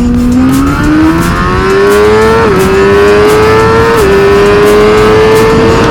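Suzuki GSX-R1000R's inline-four engine at full-throttle acceleration, its pitch climbing steadily through each gear and dropping sharply at two upshifts, about two and a half and four seconds in.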